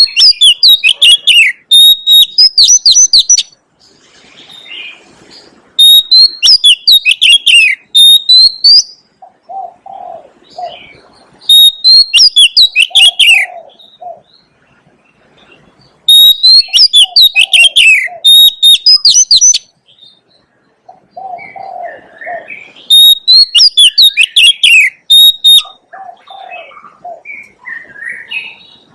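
Oriental magpie-robin singing loud phrases of rapid whistles and trills, in about five bursts of two to three seconds each. Softer, lower calls fill the gaps between them.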